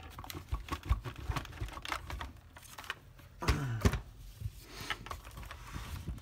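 Light plastic clicks and taps as the cyclone assembly and a small plastic part are unlatched and lifted off a Dyson DC40 upright vacuum, with one louder scraping clunk about three and a half seconds in.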